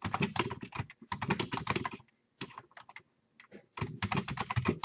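Typing on a computer keyboard: quick runs of keystrokes, broken by a couple of short pauses midway.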